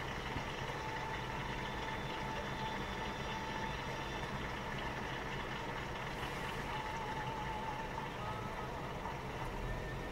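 Car engine and tyre noise, steady and even, from a car being driven along.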